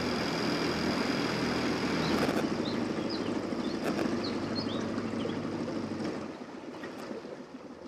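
Small outboard motor on a dinghy running at low speed, its hum dropping back about two seconds in and quieter still near the end as the boat creeps along.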